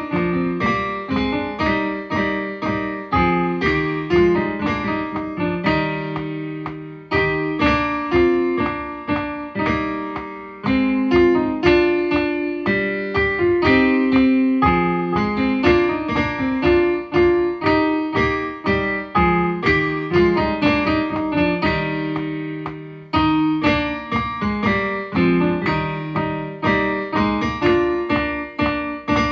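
Three-part horn trio music played back on a piano-like keyboard sound at a tempo of 120. Several lines move together in a brisk, even rhythm of short, quickly fading notes.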